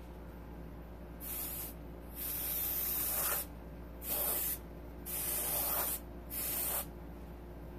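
Airbrush spraying acrylic paint, fed by an air compressor at 45 psi: five short hisses of air as the trigger is pressed and released, the first one softer, the second and fourth the longest at about a second each.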